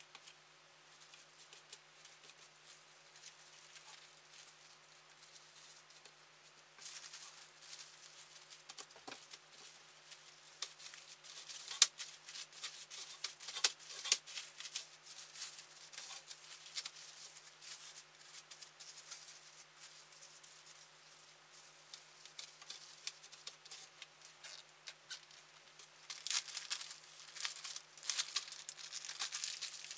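Hands handling cold porcelain clay and its plastic wrapping: scattered taps, clicks and crinkling, with a few sharp clicks about halfway through and denser crinkling near the end.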